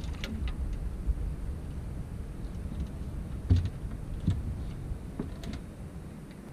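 Scattered clicks and knocks of a fishing rod and baitcasting reel being worked by hand, the loudest knock about three and a half seconds in, over a steady low rumble.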